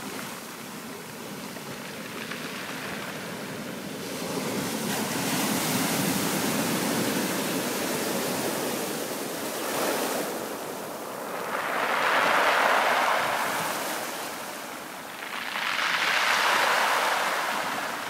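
Waves breaking on a beach of small pebbles, the water washing up and draining back through the stones with a hiss, rising and falling in three slow swells.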